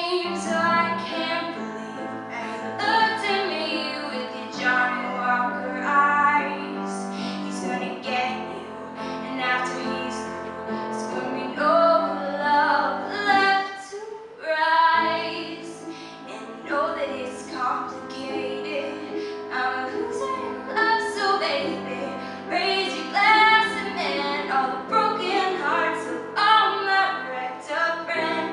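A young female vocalist sings solo through a microphone with piano accompaniment, holding long notes, with a brief break about halfway through.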